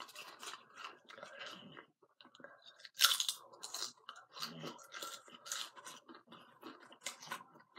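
A person crunching and chewing potato chips: a steady run of crisp crunches, the loudest bite about three seconds in.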